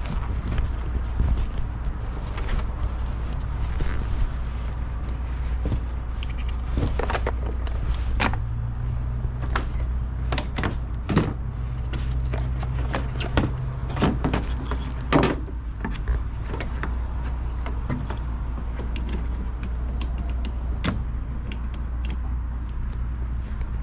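Scattered clicks, clunks and knocks of hands working around a car, like doors and panels being handled, over a steady low hum.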